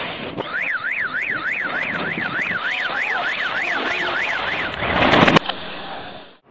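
Reversed audio: a car alarm warbling up and down about three times a second, then the explosive demolition of a tower played backwards, swelling into a loud rush that cuts off suddenly about five and a half seconds in.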